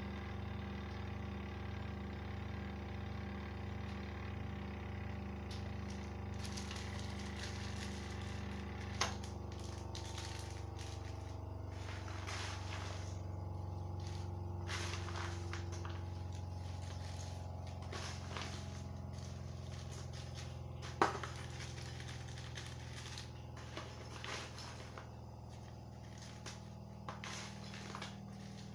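Oil-spinner centrifuge for draining fried cassava, running with a steady low motor hum that shifts in pitch about nine seconds in, with occasional sharp clicks on top.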